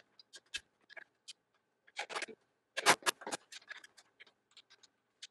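Scattered small clicks, taps and scrapes of a metal storage hook, screws and hand tools being handled while the hook is fitted, with the loudest cluster of knocks about three seconds in.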